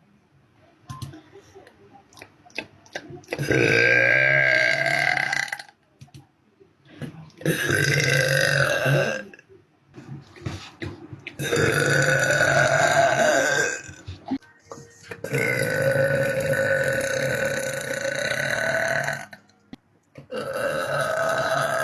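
A woman letting out a series of long, deep burps, about five of them, each lasting two to four seconds with short quieter gaps between, the first about three seconds in and the last starting near the end.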